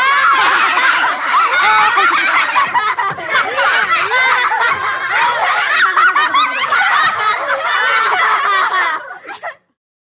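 A group of children laughing together, many high voices overlapping in a continuous mass of giggles and chuckles, cutting off abruptly near the end.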